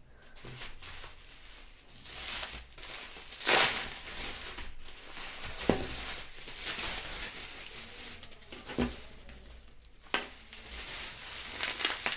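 Packaging crinkling and rustling as the tripod is unboxed, with a few sharp clicks and knocks along the way.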